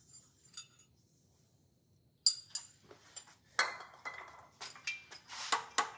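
Sharp metallic clinks and clanks of hand tools and engine parts being handled, starting about two seconds in and coming at irregular intervals.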